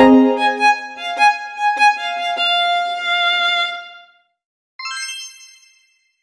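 Light background music of quick melodic notes, ending about four seconds in on a held note that fades out; a moment later a single short bright chime rings and fades within a second.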